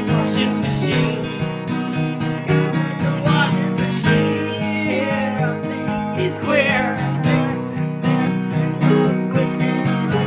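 Music: strummed acoustic guitar, with a wavering melody line over it in the middle.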